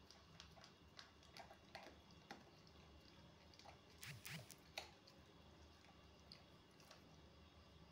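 Husky eating chopped food from a stainless steel bowl: faint, scattered chewing clicks, louder for a moment about four seconds in.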